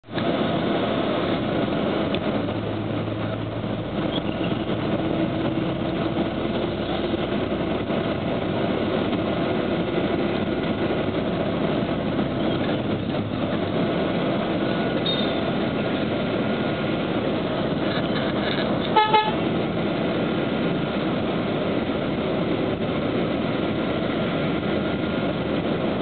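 Busy city street traffic: a steady din of engines and tyres with scattered vehicle horn toots. One short, loud horn blast stands out about three-quarters of the way through.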